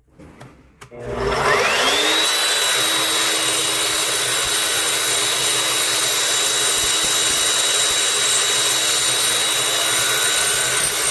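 Evolution miter chop saw starting up, its motor whine rising quickly to full speed, then running steadily with a loud hiss as the blade cuts through a piece of clamped steel stock.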